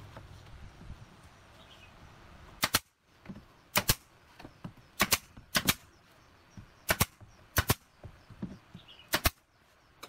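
Pneumatic nail gun firing nails through a pallet-wood strip into a plywood box: about a dozen sharp shots, mostly in quick pairs, roughly one pair every second or so from about three seconds in.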